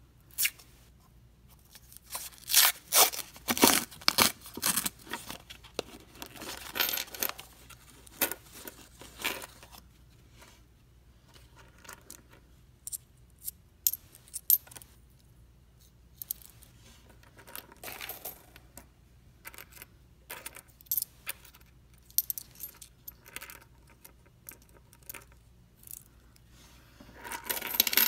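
A paper penny roll wrapper tearing and crinkling open, then pennies clicking against one another as they are handled, with a cluster of coins clattering onto a wooden tabletop near the end.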